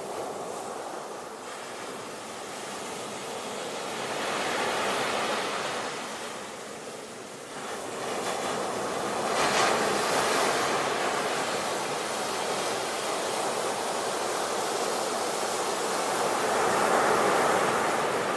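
Sea waves breaking on a shore, the surf swelling and ebbing in several surges, the loudest about half way through and near the end.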